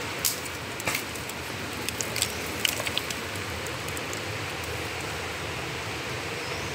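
Steady outdoor hiss with a handful of sharp clicks and snaps in the first three seconds.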